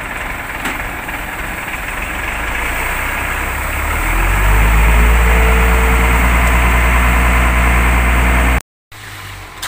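Diesel engines of a concrete mixer truck and a concrete pump truck running as the mixer prepares to discharge concrete into the pump's hopper. About four seconds in the revs rise and then hold high and steady. The sound cuts off suddenly near the end.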